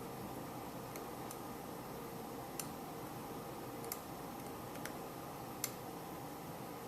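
Small sharp clicks of a hook pick working the pins of a key-in-knob lock's cylinder under tension: about six irregular clicks, the loudest near the end, over a faint steady hiss.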